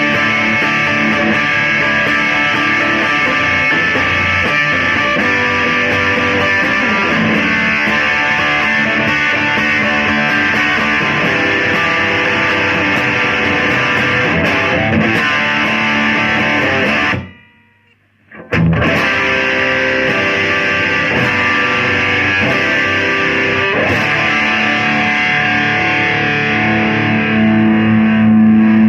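Electric guitar played through an amplifier with a distorted, effects-laden tone. The playing stops for about a second around two-thirds of the way through, then resumes and ends on a held, ringing note.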